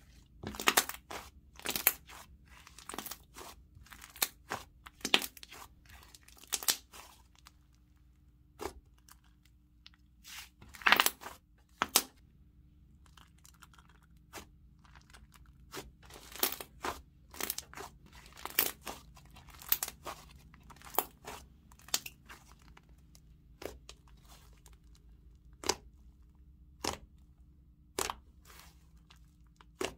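Thick green clay slime being stretched, squeezed and poked by hand, giving irregular sharp pops and crackles as the air bubbles in it burst.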